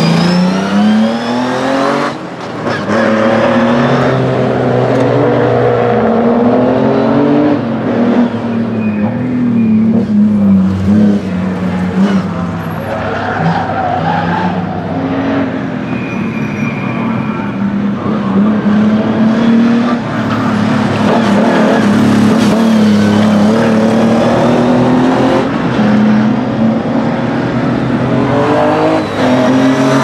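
Race-tuned 3.0-litre straight-six of an Austin Healey 3000 MkII on triple Weber carburettors, driven hard: the engine note climbs through the revs and drops away on each lift, over and over as the car passes.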